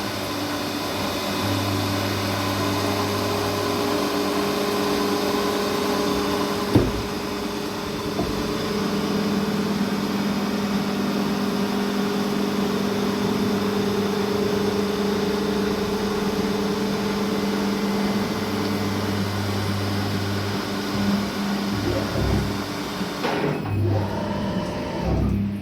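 Kunzmann WF7 CNC milling machine running while milling aluminium: a steady motor hum over a hiss, its tones shifting now and then as the machine works. There is a single sharp click about seven seconds in, and the hiss drops away shortly before the end.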